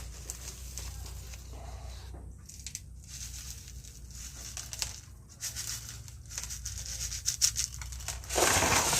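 Small river rocks clicking and scraping as they are set in around a bonsai slab, then near the end a bonsai turntable grinding loudly for about a second as it is turned.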